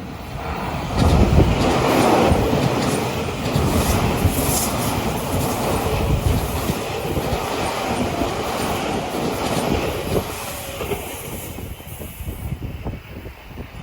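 An Odakyu Line electric train passing at speed over a level crossing, with wheels clattering on the rails. It comes up loud about a second in and thins out near the end, when the crossing bell's pulsing ring shows through again.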